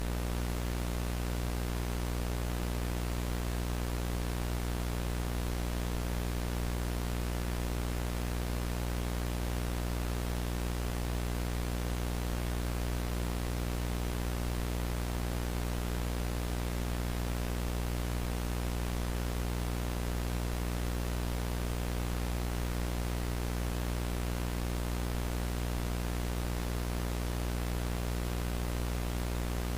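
VHS tape playback noise: a steady hiss of static over a low buzzing hum, unchanging throughout.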